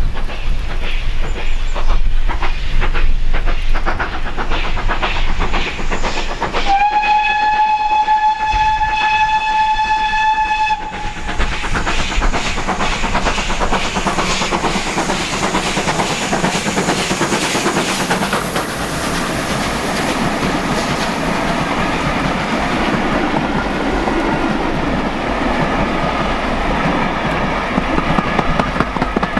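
GWR steam locomotive approaching with a regular beat from its exhaust, then sounding one long steady whistle of about four seconds, roughly a quarter of the way in. It then runs past close by, and the steady noise of the locomotive and coaches on the rails fills the rest.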